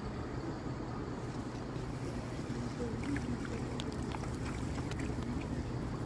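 Steady wind buffeting the microphone, a low rumbling noise. From about three seconds in, a scatter of light ticks as water drops spatter back onto the concrete parapet.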